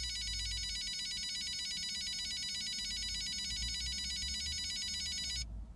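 Audi A4 B7 cabriolet's electronic warning sound: a rapid, high, trilling ringtone-like warble that cuts off suddenly near the end. This is the strange warning noise the car makes on startup and shutdown.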